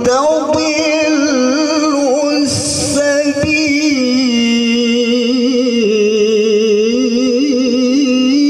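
A male qari reciting the Quran in the melodic tilawah style, one voice drawing out long ornamented notes with a wavering pitch. A short hiss cuts in about two and a half seconds in.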